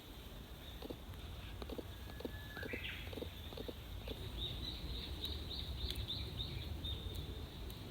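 A songbird singing: one held whistle that rises into a quick flourish, then a run of about ten quick, high repeated notes.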